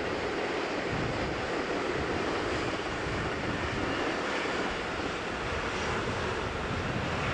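Steady rumble and hiss of an electric commuter train running through a railway yard in the distance, with wind buffeting the microphone from about a second in.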